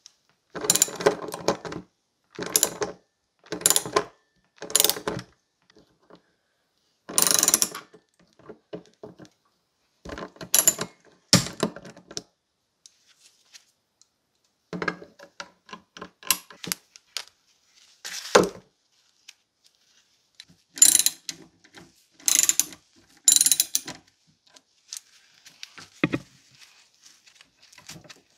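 Socket ratchet wrench clicking in about a dozen short bursts with pauses between, as the rusty nuts are backed off the bolt cutter's jaw-plate bolts.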